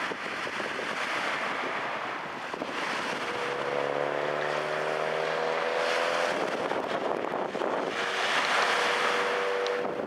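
Wind-driven lake waves surging and splashing against shoreline boulders, with strong wind buffeting the microphone. Midway through, a vehicle's engine hum rises slightly in pitch over the wind and water.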